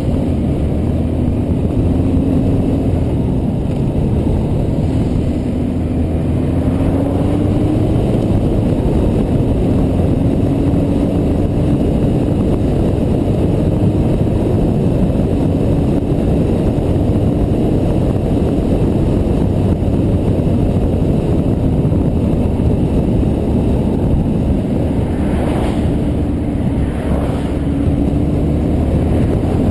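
Yamaha Diversion's air-cooled inline-four running at a steady cruise, heard under heavy wind noise on a helmet-mounted camera; the engine note drifts slightly up and down. Near the end, two vehicles swish past, one after the other.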